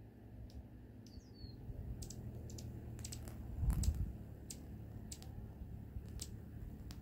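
Hummingbird chicks giving sparse, very high, thin chip notes scattered through, with one short falling chirp about a second in. A brief low rumble a little past halfway is the loudest moment.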